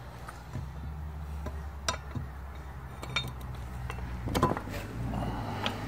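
Sharp metal clinks and taps, about six separate ones, as a pipe tool is worked against a valve spring retainer to seat the valve keepers in a cylinder head, over a low steady hum.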